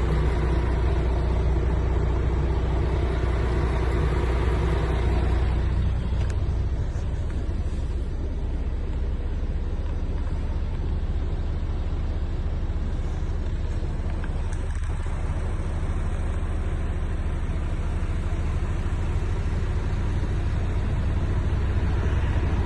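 MAN TGX 18.500 truck's 12.4-litre inline-six diesel engine running with a steady low rumble, settling slightly quieter about six seconds in.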